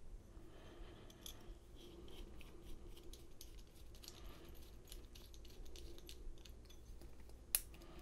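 Faint small metallic clicks and scrapes from a brass Schlage large format interchangeable core being handled as its cap is fitted back on, with one sharper click near the end.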